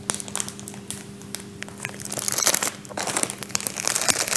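Incense packets being handled: the wrapping crinkles and crackles, denser and louder from about halfway through, over a faint steady hum.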